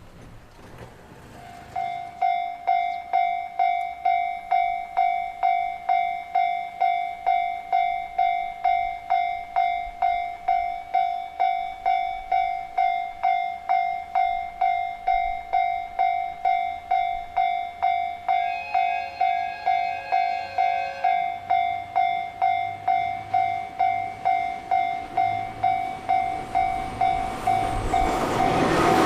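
Japanese railway level-crossing warning bell, starting about two seconds in and striking evenly at nearly two strokes a second. A train horn sounds over it for about three seconds past the middle, and near the end the rumble of the approaching train rises.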